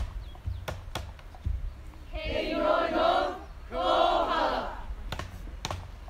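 A group of hula performers chanting in unison. Two loud, drawn-out phrases from many voices come about two and four seconds in, with a few sharp clicks scattered around them.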